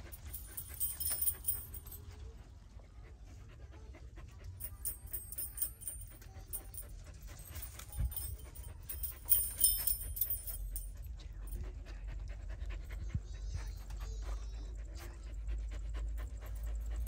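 A husky panting, with many scattered light clicks.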